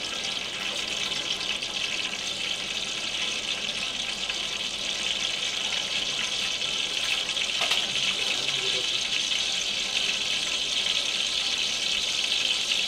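Steady hiss from a large aluminium pot of cooking oil heating on a lit stove, growing slowly louder.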